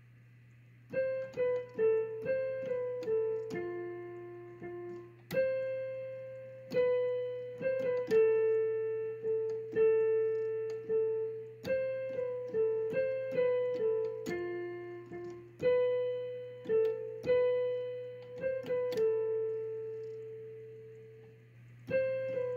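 Background music: a solo electric piano playing a slow, simple melody of single struck notes that ring and fade, starting about a second in.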